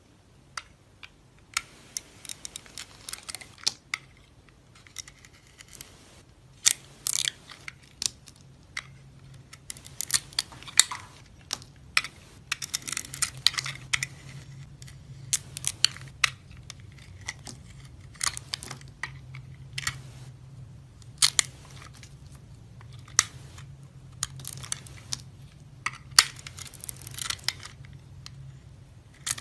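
A knife cutting into dry soap, with crisp crackling and crunching in irregular bursts of quick snaps.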